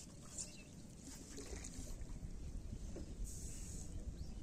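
Quiet ambience over flood water: a steady low wind rumble with faint trickling water.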